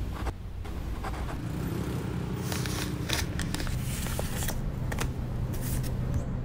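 A postcard pushed into the slot of a wall-mounted mailbox: a string of papery scrapes and clicks over a steady low rumble.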